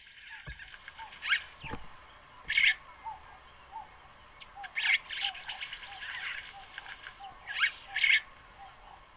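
Male red-headed weaver singing to call a female to his nest: two long, high, buzzy phrases with a few short, loud squeaky notes between and after them.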